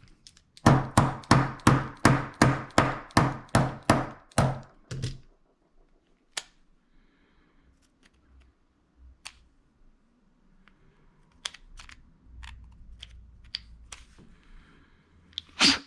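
About a dozen sharp metal taps in quick succession, about three a second, as a small tool is driven against an old Ronson lighter to push out a plugged passage. Scattered light clicks and scraping follow, with one louder click near the end.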